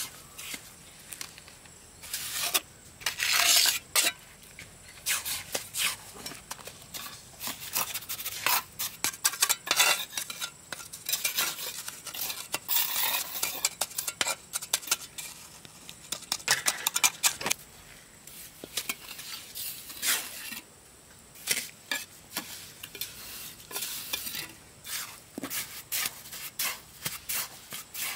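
Metal scraping and clinking in repeated irregular strokes, like a hard metal tool scraping against a hard surface, with short pauses between bursts.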